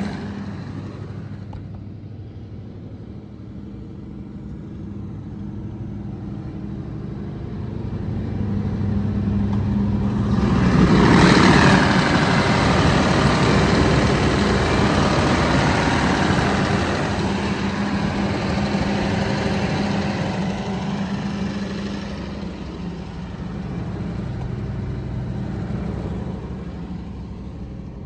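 Scania DC16 V8 diesel engine of a 715 kVA generator set running at a steady speed. It grows louder and hissier for several seconds around the middle, then eases off again.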